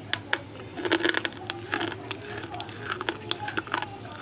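Slate pencil being bitten and chewed: sharp cracks as pieces snap between the teeth, and gritty crunching in clusters about a second in and again near three seconds.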